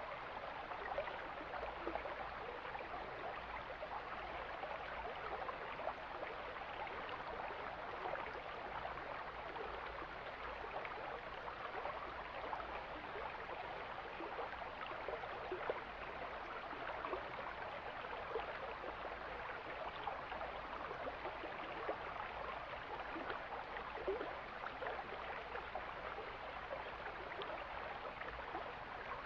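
Mountain stream flowing: a steady rush of running water that holds even throughout.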